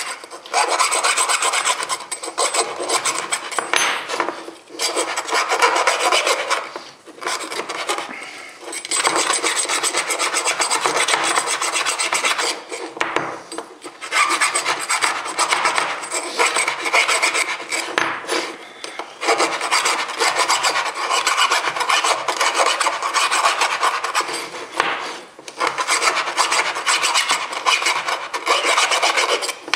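Hand file rasping over the edge of a metal milling-machine clamp in repeated back-and-forth strokes. There are short pauses every few seconds.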